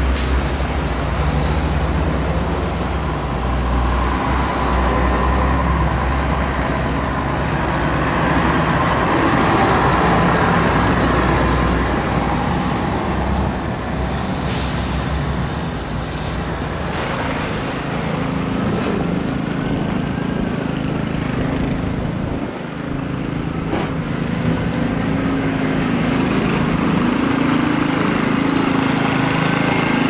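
Street traffic, led by a heavy truck's engine running with a strong low rumble through the first half. Later a faint tone glides up and down twice.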